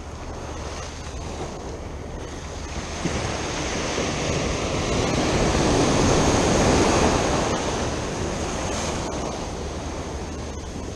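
Ocean surf breaking and washing in close by, a steady rush of white water that swells to its loudest about six to seven seconds in and then ebbs.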